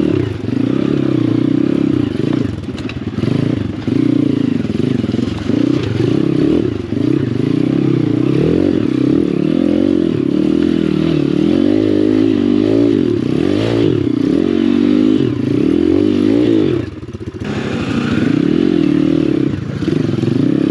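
Apollo RFZ pit bike's swapped-in 150cc single-cylinder four-stroke engine revving up and down as it is ridden over roots and logs on a forest trail. The throttle is closed briefly once, about three-quarters of the way through.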